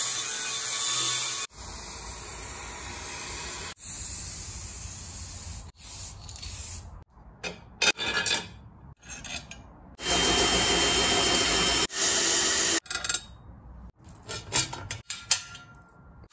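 Angle grinder grinding down welds on a steel bumper, in several steady stretches cut together, the loudest at the start and again about ten seconds in. Between and after them come shorter, choppier stretches of clicks and clatter from metal parts and bolts being handled and fitted.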